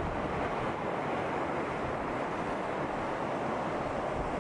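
Steady rush of breaking surf and churning white water, with wind buffeting the microphone.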